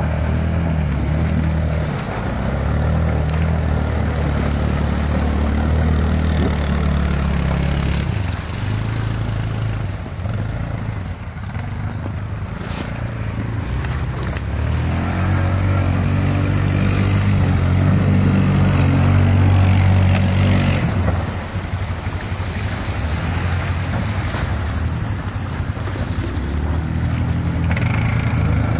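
Quad bike (ATV) engines running and revving through the water, the pitch rising and falling as the throttle is worked. It is loudest about two-thirds of the way in, then drops back.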